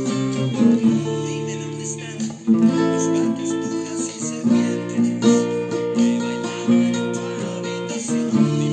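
Acoustic guitar with a capo playing strummed chords in E major, the chords changing every second or two.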